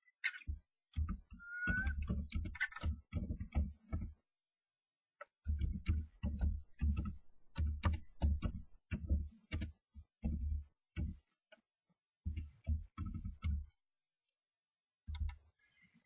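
Common starlings fighting inside a nest box: their claws and wings scrabble and knock against the box in bursts of rapid clicks and thumps, with a brief squeak about two seconds in.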